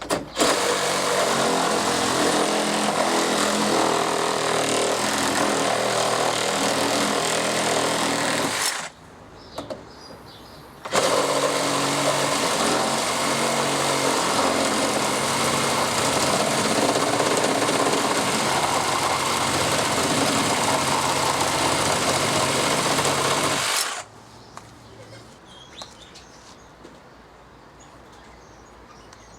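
Cordless reciprocating saw cutting through timber at full speed in two long runs, pausing briefly about nine seconds in and stopping a few seconds before the end, leaving quiet background with birds and insects.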